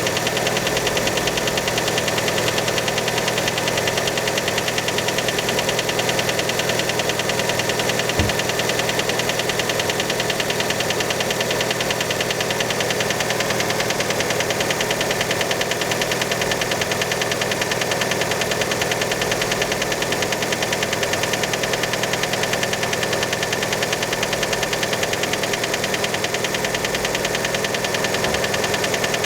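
Fiat Panda engine running steadily just after a cold start, with a fast, even knocking throughout that many take for piston slap from a worn piston skirt. One sharper click about eight seconds in.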